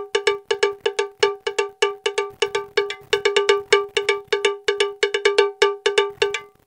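Background music: a quick run of short ringing notes repeated over and over on one main pitch, about five a second, cutting off suddenly at the end.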